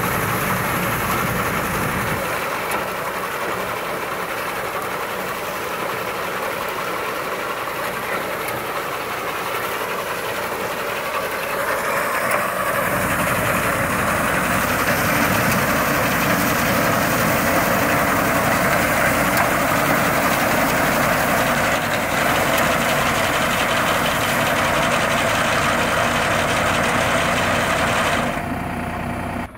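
Tractor engine running while driving a Yapel TDG 180 reaper-binder through its power take-off, a steady mechanical din. The sound changes about two seconds in, grows louder about twelve seconds in, and drops off sharply just before the end.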